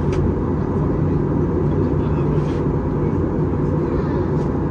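Steady cabin noise of an Airbus A321neo in flight, heard from a window seat: the hum of its Pratt & Whitney PW1100G geared turbofan engines mixed with the rush of air past the fuselage, with low droning tones and no change in level.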